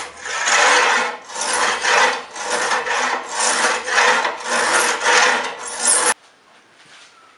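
Hand tool scraping along a steel sword blade in steady back-and-forth strokes, about one every two-thirds of a second, cutting the blade's fuller. The strokes stop abruptly about six seconds in, leaving only faint room sound.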